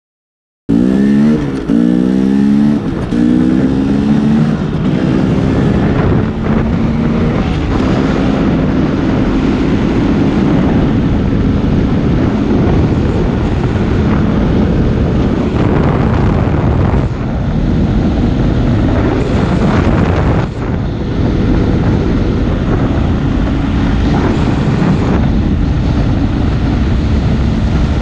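Dirt bike engine recorded by a helmet-mounted GoPro Hero5 with its manual audio control set to wind-only reduction. It starts suddenly about a second in, revving up through the gears in a few rising sweeps, then runs steadily at cruising speed under a constant rush of wind noise.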